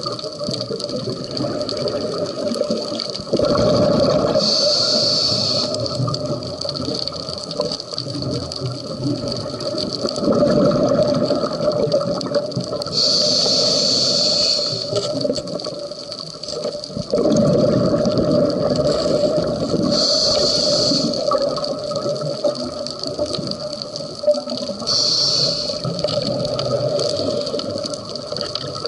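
Scuba diver breathing through a regulator underwater: four short hissing inhalations, about a second each, alternating with longer bubbling exhalations, in a slow breathing rhythm.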